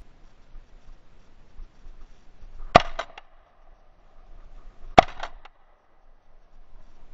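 Two shotgun shots about two seconds apart, each sharp and loud with a short rattle of echo after it.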